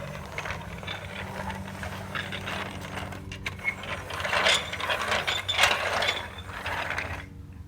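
Lego Duplo plastic toy train rolling along plastic Duplo track, its wheels rattling and clicking over the track joints, louder about four seconds in.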